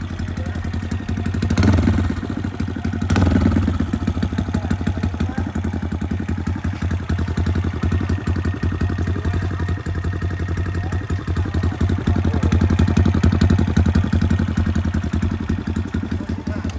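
Honda Monkey 125's single-cylinder four-stroke engine idling through an aftermarket LeoVince slip-on exhaust, with two short throttle blips about one and a half and three seconds in.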